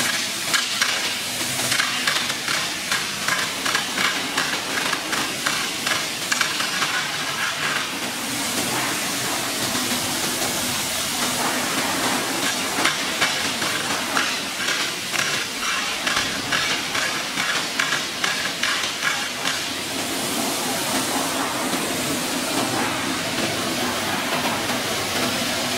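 Abrasive belt on a CNC polishing machine's contact wheel grinding the inside of a stainless steel dished tank head: a steady hissing grind over a low machine hum, pulsing rapidly in stretches.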